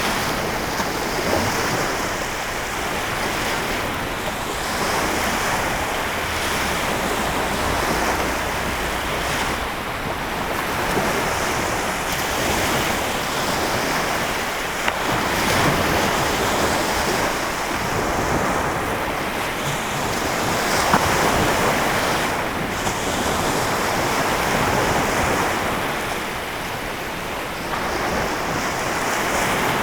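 Small lake waves washing onto the shore, a continuous rushing wash that swells and eases every few seconds, with wind buffeting the microphone.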